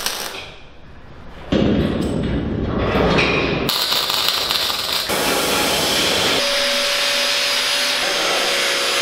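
MIG welding steel: the welding arc's continuous crackling hiss, setting in about a second and a half in and growing brighter and sharper a little later. A steady tone joins it past the middle.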